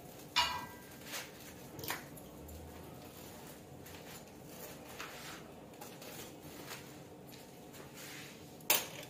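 A metal utensil clinks lightly against a plate a few times over quiet kitchen room tone. The loudest knock comes near the end.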